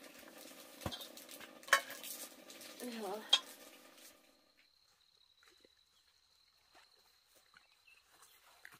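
Metal pot and utensil clatter over a wood fire, with a low sizzling haze and three sharp knocks in the first four seconds. It then cuts to near quiet: a faint steady high whine with light scattered ticks, like footsteps on a dirt path.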